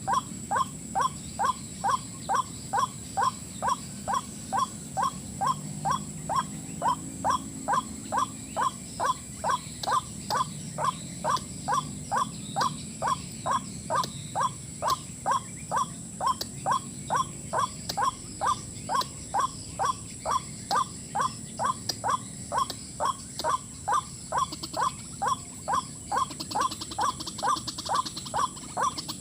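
White-breasted waterhen (ruak-ruak) calls: one short note repeated at a steady, even pace of about two to three a second. A thin steady high tone runs underneath.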